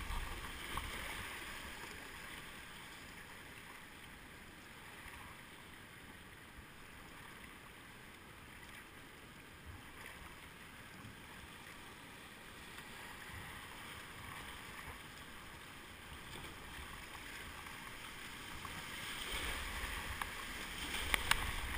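Rushing river water around a kayak running small rapids, a steady wash that grows louder near the end as the boat drops into whitewater, with a few brief sharp sounds near the end.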